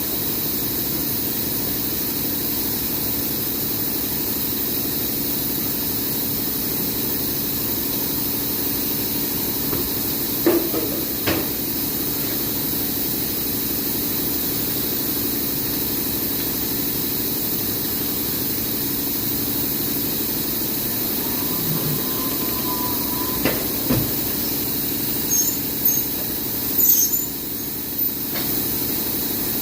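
Steady mechanical hum and hiss of running machinery, with a few short knocks about ten seconds in and a cluster of them near the end.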